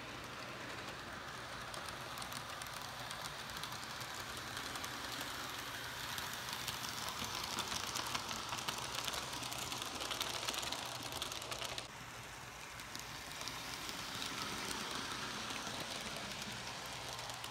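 HO scale model train running along its track: a steady electric-motor whir with fine, rapid clicking of the wheels over the rail joints.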